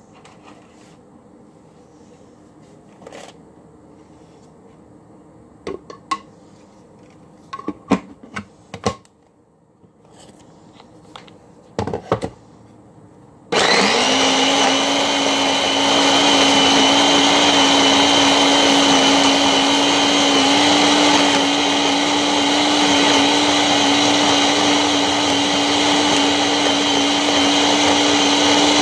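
A Ninja Ultra Prep food processor's power-pod motor starts abruptly about halfway through and runs steadily with a low hum and whine, churning thick cookie dough. Before it comes a series of sharp clicks and knocks.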